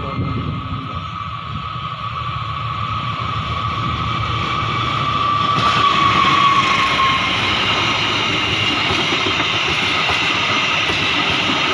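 A train rolling past on the rails, its running noise growing louder toward the middle and then holding steady, with a thin high tone that brightens and dips slightly about six seconds in.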